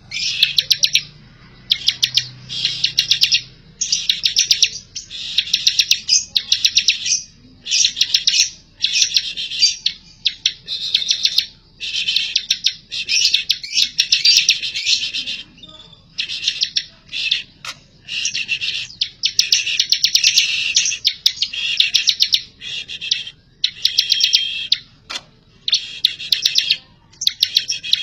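A songbird singing hard and almost without pause, in dense, rapid phrases of one to two seconds broken by short gaps: the vigorous, sustained song that bird keepers call gacor.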